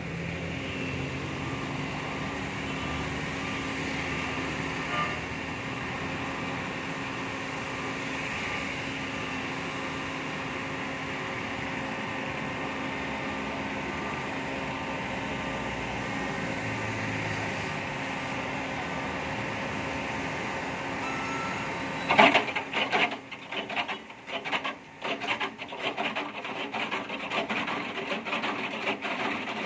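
Micro-trenching machine sawing a narrow slot in wet road pavement, a steady machine drone with a held whine. About two-thirds of the way through, the sound suddenly turns louder and rougher, rising and falling unevenly as the cutter grinds.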